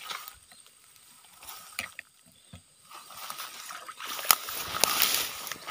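Water sloshing and rustling as a fish trap is handled in a weedy, flooded ditch. It is quiet at first and grows louder after about three seconds, with a few sharp clicks.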